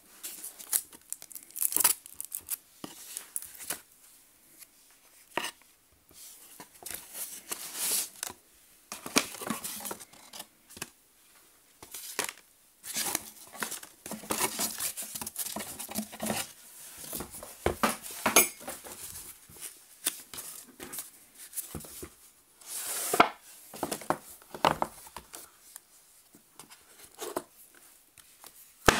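Hands handling cardboard and foam packaging: irregular rustling, scraping and sliding of a cardboard shipping carton and its foam inserts as a watch box is pulled out, with sharp taps and clicks as the hinged presentation box is handled and opened.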